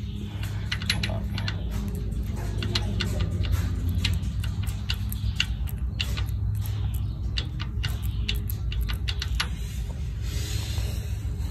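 Irregular light metallic clicks as a gear in the front gear train of a 5.9 Cummins diesel is rocked back and forth by hand, its teeth knocking against the meshing gear: play that the owner is unsure is cause for concern. A steady low hum runs underneath.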